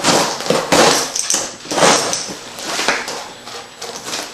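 Rustling and scraping of packaging being handled and pulled out of a shipping box, in several uneven bursts.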